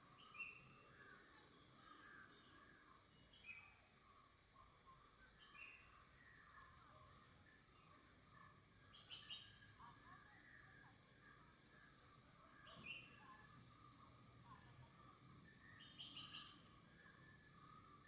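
Faint forest ambience: a steady high-pitched insect drone, with small birds chirping in short calls every few seconds and softer chattering beneath.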